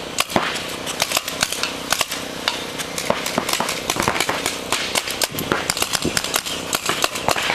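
Reball markers firing, with the shots popping irregularly several times a second over a steady low hum.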